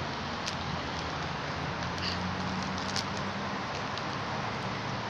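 A few faint crinkles and ticks of a plastic chip bag being handled by a macaque, over a steady low hum and hiss.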